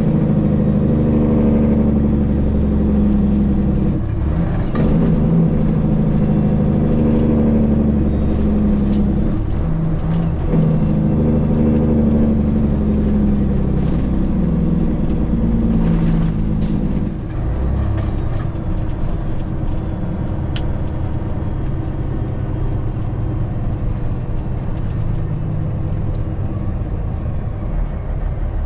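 A Peterbilt 379's CAT C15 inline-six diesel engine being taken down through the gears by floating, without the clutch: the engine note breaks off and picks up again every few seconds as each gear is pulled and the revs are matched, with a faint high whistle that sags at each shift. About 17 s in it settles into a steadier, quieter run, with a couple of sharp clicks.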